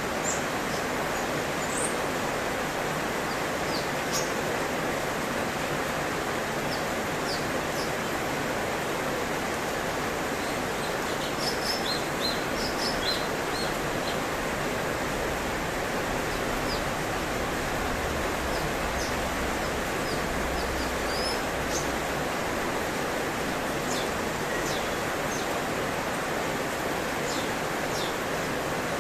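Cucak cungkok giving short, high, scattered chirps, with a quick run of notes about eleven to fourteen seconds in and more near the end, over a steady rushing hiss like running water that is the loudest sound throughout.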